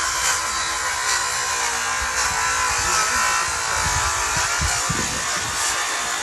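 Handheld electric power tool running steadily with a buzzing motor hum, working through pallet wood, with a few light knocks along the way.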